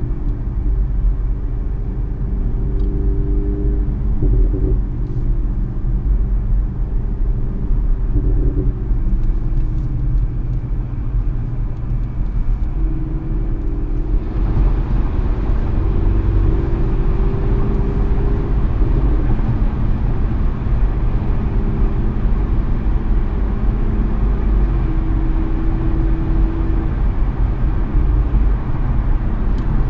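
Inside the cabin of a 2016 Audi S6 with an AWE Touring exhaust, its twin-turbo 4.0 V8 drones steadily while cruising at highway speed in 7th gear, under a low rumble of tyre and road noise. About halfway through, the road and wind hiss grows louder.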